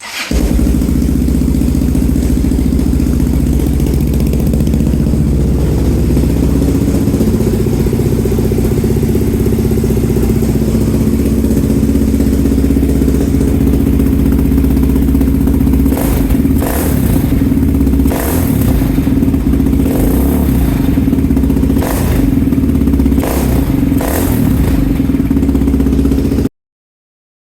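Yamaha motorcycle engine running steadily and very loud through an exhaust that the owner says needs another damper. Several sharp clacks come in the second half, and the sound cuts off suddenly near the end.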